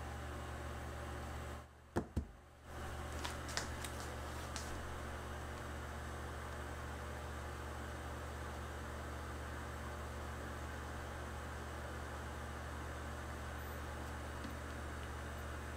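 Steady low electrical hum over a constant background hiss, broken about two seconds in by a short dropout with two sharp clicks, followed by a few faint ticks.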